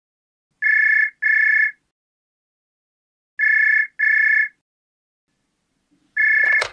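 Telephone ringing in a double-ring pattern: two short beeps in quick succession, a pause, then the pair again. A third ring near the end is cut off by a sharp click.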